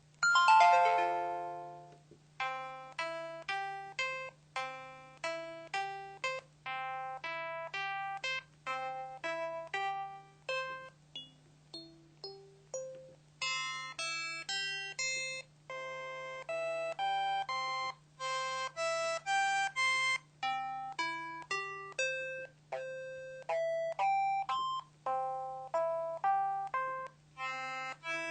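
KTF-X7000 mobile phone playing a synthesized ringtone melody through its small speaker. A decaying chime opens it, then a tune of short, quickly fading notes follows; the notes pause for about two seconds a little before halfway, then resume. A steady low hum sits underneath.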